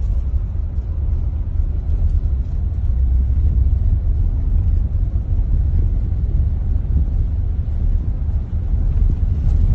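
Steady low rumble inside a car's cabin as it drives over an unpaved gravel road: engine and tyre noise.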